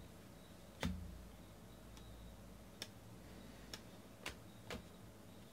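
A stack of baseball cards being flipped through by hand: about five faint, sharp clicks as card edges snap past one another, the loudest about a second in.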